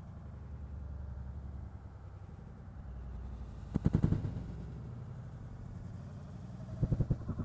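Helicopter flying nearby: a steady low rotor and engine drone, with two short spells of rapid, loud rotor thudding, one about four seconds in and one near the end.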